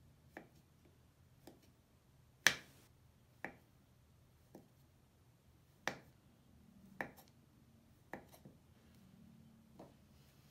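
Knife slicing a solid bubble bar on a wooden cutting board: about ten sharp taps, roughly one a second, as the blade cuts through each slice and meets the board. The tap about two and a half seconds in is the loudest.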